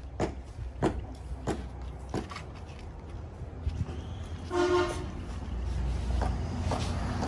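Footsteps on tile for the first couple of seconds, then a short vehicle horn toot a little past halfway, over a low rumble that grows louder toward the end.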